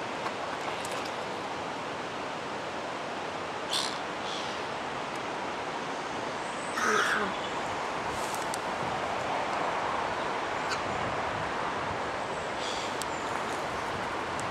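Birds calling a handful of times, in short harsh calls, over a steady background rush; the loudest call comes about seven seconds in.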